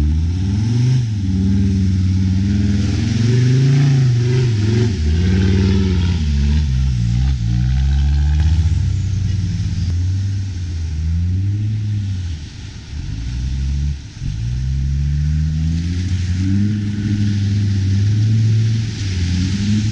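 Land Rover Discovery engine revving up and down over and over as the truck ploughs through a deep mud-water hole, with muddy water churning and splashing. The revs drop away briefly twice past the middle, then climb again.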